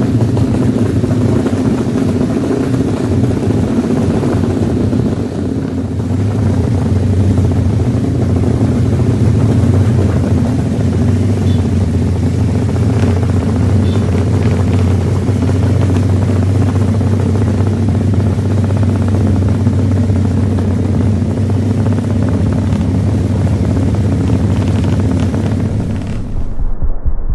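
Engines of several small modified motorcycles running steadily as they ride along together in a group, a continuous drone. Near the end the sound turns duller.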